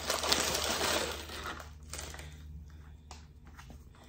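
Brown paper bag crinkling and rustling as hands open it and pull bread out. It is busiest in the first second and a half, then thins to a few faint crackles.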